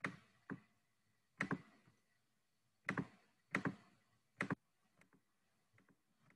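Computer mouse clicking: several sharp clicks, mostly in quick pairs, over the first four and a half seconds, then only faint ticks.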